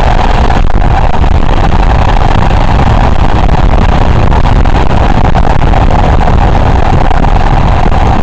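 Loud, steady drone of a moving vehicle's engine and road noise, with no distinct events.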